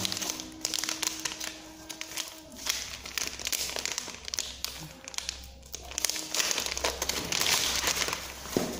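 Plastic wrapping and a thin plastic bag crinkling and rustling in irregular bursts as hands pull them open and pull the contents out.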